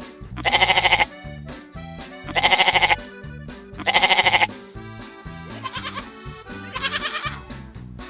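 Goats bleating: five loud, wavering calls of about half a second each, over background music with a steady bass line.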